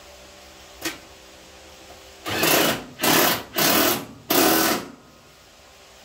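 Handheld power tool run in four short bursts of about half a second each, driving bolts while a fender is fitted to a car body. A single sharp click comes about a second before the bursts.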